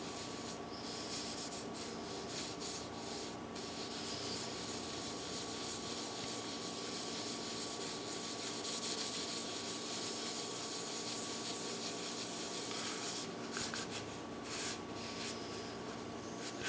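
A cloth rag rubbing oil into the face of a red oak cutting board, an uneven scrubbing hiss that keeps going with the strokes of the hand. A faint steady hum runs underneath.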